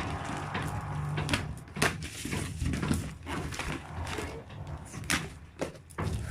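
Unpacking a cardboard parcel: scattered knocks, scrapes and rustles of box and packaging being handled, over a steady low background hum.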